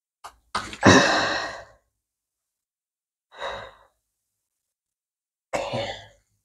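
A woman sighing three times. The first sigh, about a second in, is the longest and loudest, and two shorter ones follow near the middle and near the end, with silence between them.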